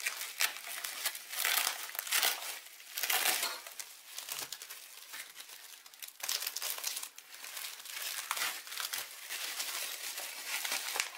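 Plastic bubble wrap crinkling and rustling in irregular bursts as hands unwrap and handle a bubble-wrapped packet.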